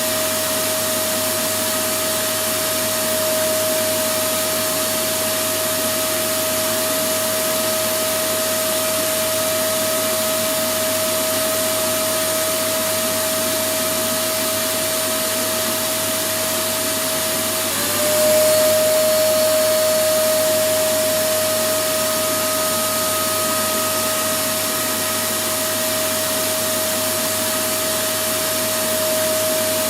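Electric vacuum cleaner running continuously: a steady rushing hiss with a constant motor whine. About two-thirds of the way through, the whine dips briefly in pitch and the sound gets a little louder, then settles back.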